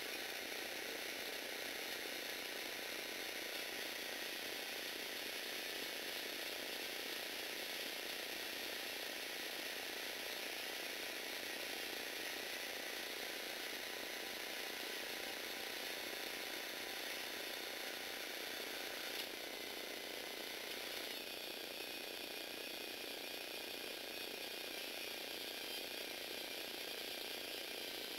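Small electric motors driving the plastic gear trains of a Lego Technic arm, a steady whirring with gear chatter as the arm moves. A click comes about two-thirds of the way through, after which the sound changes.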